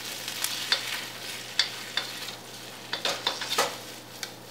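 Wooden spatula scraping and knocking against a wok as chicken and vegetables are stir-fried, over a steady sizzle. The sharp scrapes come irregularly, roughly once a second.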